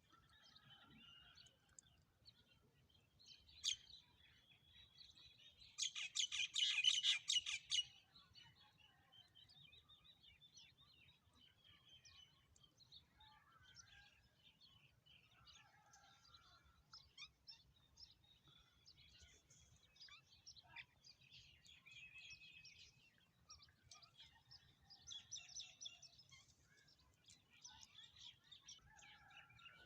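Several wild birds calling and chirping in a scattered mix of short notes and phrases. About six seconds in, one bird gives a loud, rapid trill lasting about two seconds, the loudest sound here.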